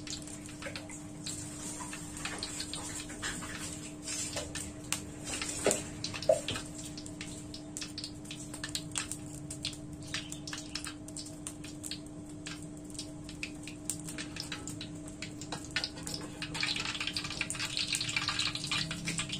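Cooking oil heating in a wok on a gas stove, crackling and popping irregularly over a steady low hum, with two louder pops a few seconds in. Near the end a sizzling hiss builds as the oil gets hotter.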